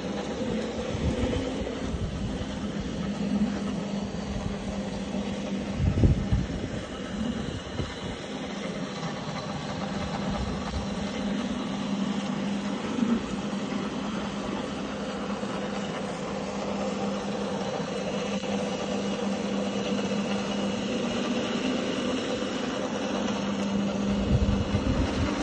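Single-disc rotary floor machine running, its brush scrubbing a wet, foam-covered rug: a steady motor hum over an even wet scrubbing noise. There are a couple of low thumps, one about six seconds in and one near the end.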